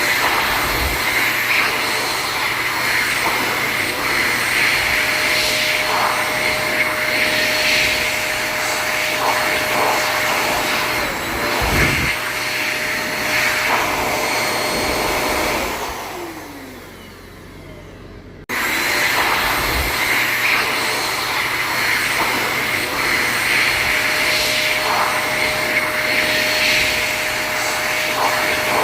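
Automatic hand dryer blowing, a steady rush of air with a constant whine. About sixteen seconds in it winds down with a falling hum, then about two seconds later it is abruptly back at full blast.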